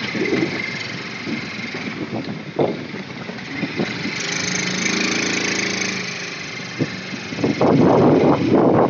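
Engine of a small delivery vehicle running as it drives along, heard from inside the cab, its hum swelling between about four and six seconds in. Near the end comes a cluster of loud knocks and rattles.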